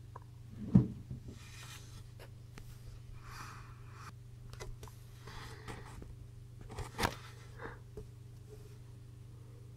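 Handling sounds of a power supply unit being opened up and examined. A sharp knock comes about a second in, then spells of rubbing and scraping, and another knock about seven seconds in, over a faint steady hum.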